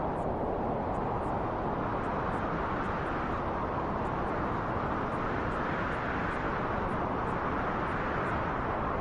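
Wind blowing steadily, a gust swelling and easing off around the middle.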